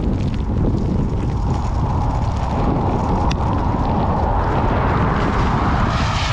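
Wind buffeting the microphone of a cyclist riding in rain: a loud, steady low rumble, with a higher rushing sound that grows louder over a few seconds.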